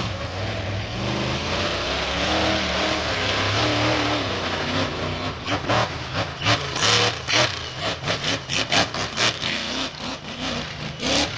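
Monster truck engine revving hard, its pitch rising and falling. From about five seconds in, a rapid irregular series of loud bangs and knocks comes over the engine.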